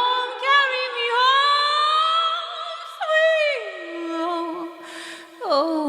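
A cappella voices singing the drawn-out closing notes of a hymn, with no instruments. A long held note slides down in pitch about three seconds in, and a short final phrase falls away near the end.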